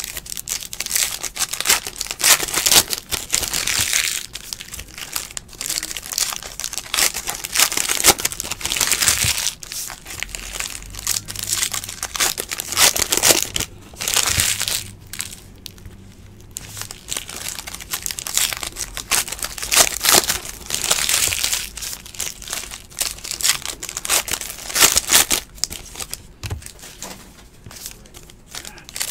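Foil trading-card pack wrappers crinkling and tearing as packs are opened and handled, in repeated irregular bursts.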